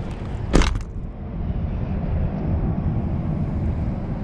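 Wind buffeting the microphone as a steady, uneven low rumble, with one sharp knock about half a second in.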